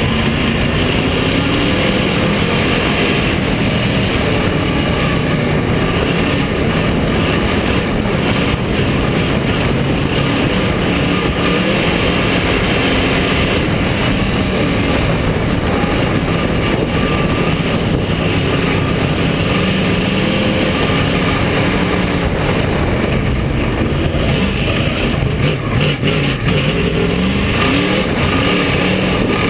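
Bomber-class dirt-track race car's engine running loud, heard from inside the cockpit over a steady rush of noise, its pitch rising and falling as the driver gets on and off the throttle.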